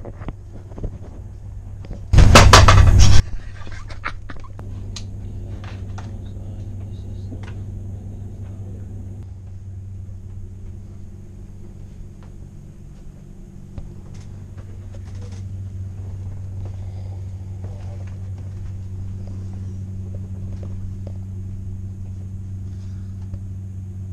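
Steady low hum and rumble inside a moving passenger train carriage, with scattered small clicks and knocks. About two seconds in, a loud burst of noise lasting about a second drowns everything out.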